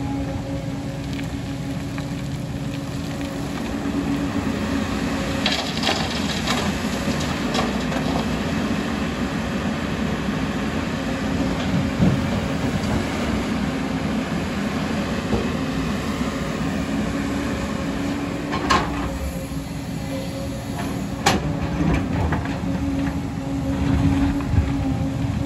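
JCB tracked excavator's diesel engine and hydraulics running steadily under load while it digs, with several sharp clanks and knocks of the steel bucket striking and scraping rock.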